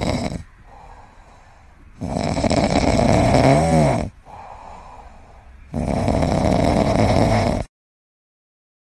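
Loud snoring: three long snores of about two seconds each, a few seconds apart, with quieter breathing between, then a sudden cut to silence near the end.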